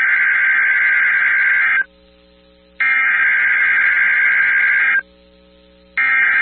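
Emergency Alert System SAME header on NOAA Weather Radio: loud buzzing digital data bursts, each about two seconds long with a one-second gap between them. The first burst ends about two seconds in, the second plays whole, and the third starts about six seconds in. The header is the coded start of an emergency alert, here a Child Abduction Emergency (AMBER Alert).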